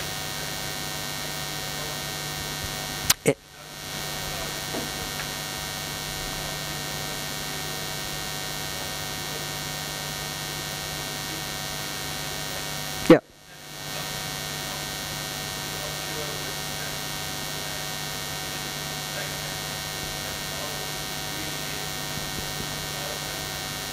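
Steady electrical mains hum, a buzz with many overtones from the sound system, broken by two sharp pops about 3 seconds and 13 seconds in, each followed by a brief drop-out before the hum comes back.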